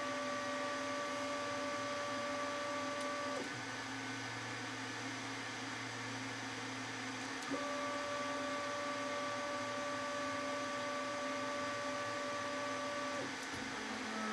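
Stepper motor driving a CNC rotary table, a steady whine as it turns the chuck. The whine stops about three and a half seconds in, leaving a lower steady hum, then starts again about seven and a half seconds in and stops about a second before the end.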